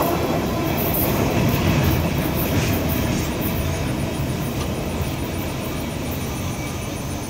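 Freight train rolling away on the track, its wheel-on-rail rumble and clatter slowly fading.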